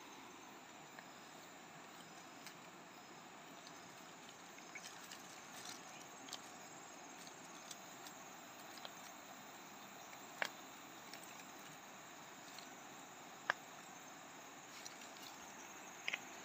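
Faint rustling and small scattered clicks of leaf litter and mushroom stems as hands pick wild mushrooms off the forest floor, over a quiet steady hiss. Two sharper clicks stand out, about ten and thirteen seconds in.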